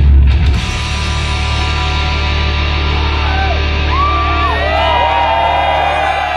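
A live rock band ends a song with loud final hits and leaves its guitar and bass chord ringing. From about three seconds in, the crowd begins cheering and whooping over the fading chord.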